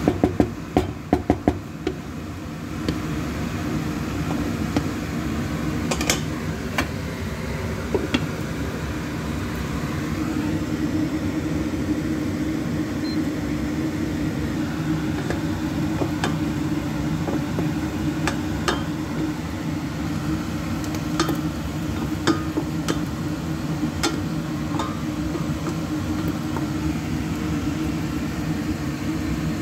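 A spatula knocks and scrapes against a frying pan several times in the first two seconds. A steady low hum runs underneath throughout, with scattered light clicks of kitchenware later on.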